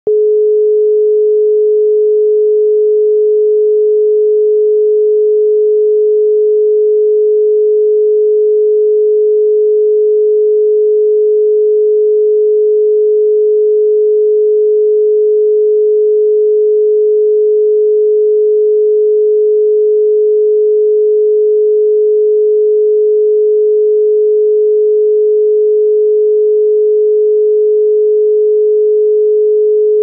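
Continuous 425 Hz telephone dial tone of the European standard (ETSI Group A), the signal that the exchange is ready for the caller to dial: a single steady tone with no breaks.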